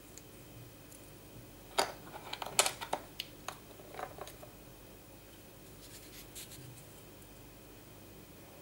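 Light taps and clicks of a glue tube and cardboard pieces being handled and set down on a table, in a quick cluster from about two to four seconds in.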